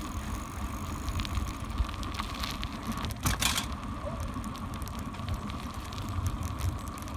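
Riding noise from a bicycle on the move: wind rumbling on the microphone, tyres on pavement and the bike rattling, with a brief louder clatter about three seconds in.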